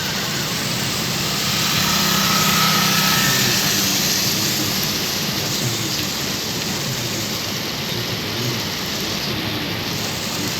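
Heavy rain falling with a steady hiss over a low hum, swelling louder for a couple of seconds near the start.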